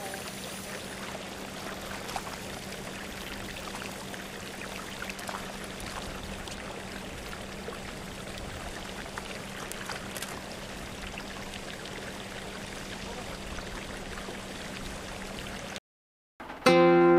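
A hooked trout splashing at the pond surface now and then as it is played and netted, over a steady rushing-water noise with a low hum. Near the end the sound drops out briefly and music starts.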